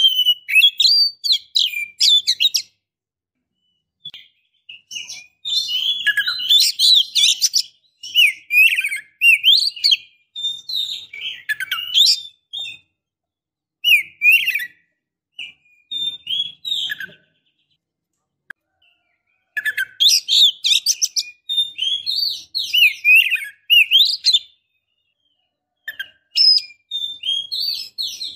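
Female oriental magpie-robin calling in phrases of rapid chirps and short whistled notes, each a few seconds long, with brief silences between them. It is the excited call of a hen in breeding condition, played to goad a male magpie-robin into answering.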